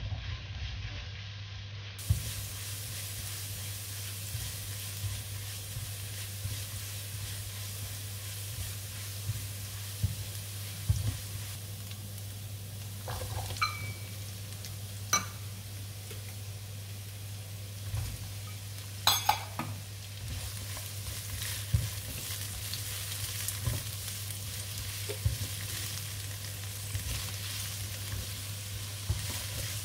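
Stir-fry sizzling steadily in a hot pan, with a spatula knocking and scraping against the pan every few seconds.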